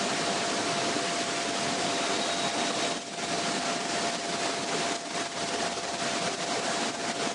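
Steady machine noise: an even hiss with a constant thin whine, dipping slightly about three and five seconds in.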